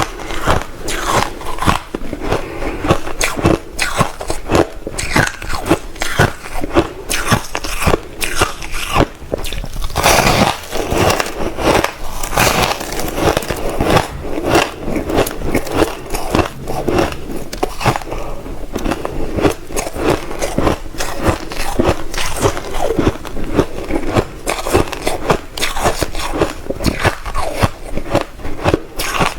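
Close-up crunching of compacted crushed ice being bitten and chewed: a dense run of sharp cracks and crackles, many a second, with no letup.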